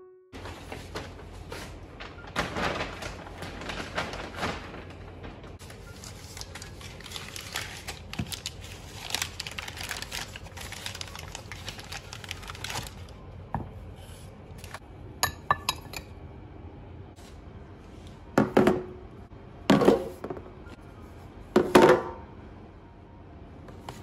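Crumpled brown packing paper rustling and crackling as a wrapped bowl is unwrapped by hand, followed by three loud knocks of dishes being set down on a tabletop, a second or two apart.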